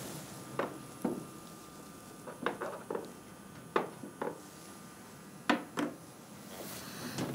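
Wooden chess pieces being picked up and set down on a chessboard: a string of light wooden knocks, several coming in quick pairs.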